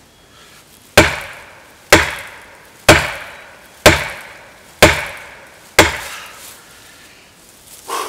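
Polymer handle of a Fiskars 28-inch chopping axe slamming into a hardwood tree trunk in deliberate overstrikes. There are six hard strikes about a second apart, each ringing briefly, then a shorter, quieter sound near the end.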